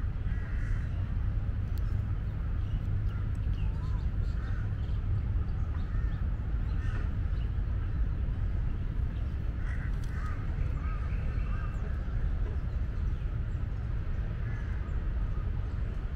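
Birds chirping and calling in short, scattered notes over a steady low rumble.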